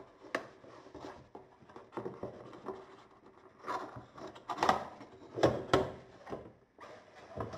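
Graphics-card retail box being opened and handled: a click near the start, then scattered rustling and sliding scrapes of the box and its packaging, loudest a little past the middle.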